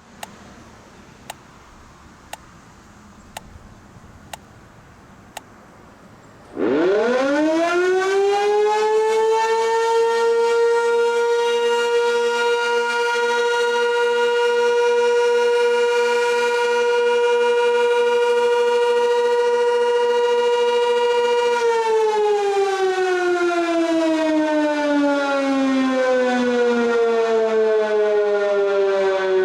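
Sentry Siren 16V1T-B outdoor warning siren sounding its monthly test: it winds up quickly to a loud steady tone, holds it for about fifteen seconds, then winds down with steadily falling pitch. Before it starts there are only faint clicks about once a second.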